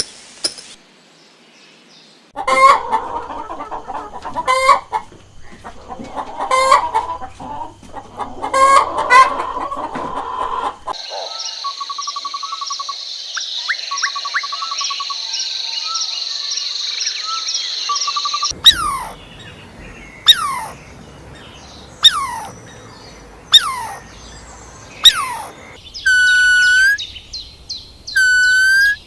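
Chickens clucking with loud repeated calls, then a cut to other bird sounds: a steady high-pitched trill with short chirps, five falling whistled calls about a second and a half apart, and short pitched calls near the end.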